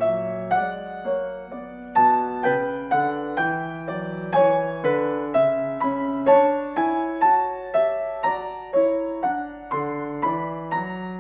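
Background piano music: a gentle melody with notes struck about twice a second, each left to fade.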